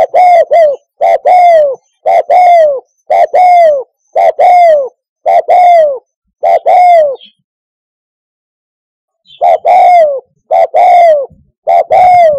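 Spotted dove cooing loudly in repeated phrases, each a short coo followed by a longer coo that falls at its end, about one phrase a second. The calling breaks off for about two seconds in the middle, then starts again.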